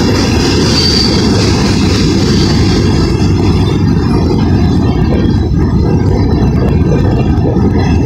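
Freight cars of a BNSF manifest train rolling past, a loud, steady rumble of wheels on rails, with a brief high squeal about a second in.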